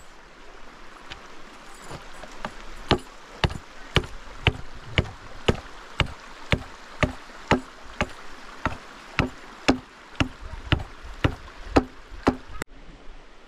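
Small hatchet striking a wooden stick in steady, sharp blows, about two a second, with the wood braced against a log. The blows stop abruptly near the end.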